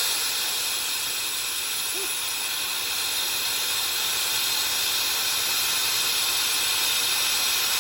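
Pressurised gas hissing steadily out of a loosened air-conditioning line at the condenser of a 2006 Kia Sportage: the A/C system was still charged when the fitting was undone.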